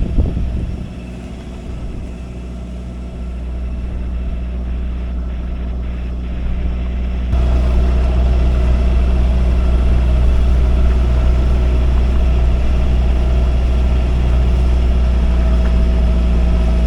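A sailboat's inboard engine running steadily at low speed, a constant low drone with a steady hum over it. The sound jumps suddenly louder about seven seconds in, then holds steady.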